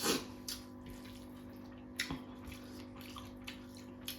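Wet mouth sounds of eating: smacking and chewing, with a louder wet smack at the start and a few sharp clicks after, over a steady low hum.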